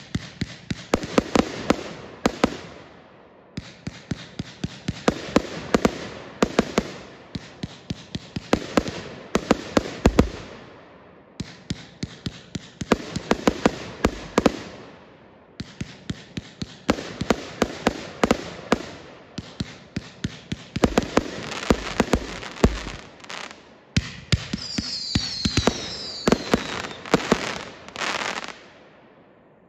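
500-gram consumer firework cake (Unleashed) firing: volleys of sharp shots as the tubes launch and break overhead, with crackling trailing after each volley and short lulls between. There are a few high falling whistles about 25 seconds in. The firing stops near the end and the sound fades away.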